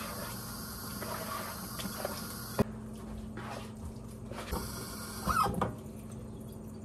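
Kitchen tap running water into a plastic bowl, then shut off about two and a half seconds in with a sharp click. A few knocks and handling sounds of the plastic bowl follow, with a short louder scrape near the end.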